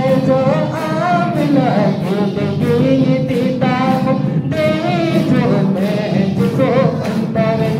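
A congregation singing a worship hymn in Santali, with a wavering sung melody over a steady low accompaniment and a regular beat of sharp ticks about twice a second.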